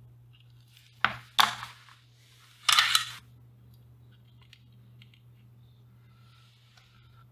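Three short rustling, scraping bursts of hands handling a wire and tools on a workbench, about a second, a second and a half and nearly three seconds in, then only faint small ticks.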